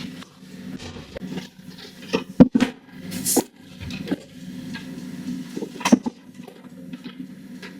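Kitchen clatter: items knocked and set down on a counter several times while clearing up, over a steady low hum.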